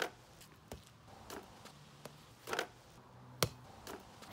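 Spikeball game in play: the rubber ball struck by hands and bouncing off the round net, heard as a handful of short, irregular pops and slaps, the sharpest about three and a half seconds in.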